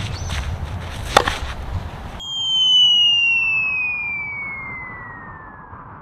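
A single sharp knock about a second in over outdoor court ambience. Then, after an abrupt cut, a falling-whistle sound effect starts suddenly and glides steadily down in pitch for about three and a half seconds, fading as it drops.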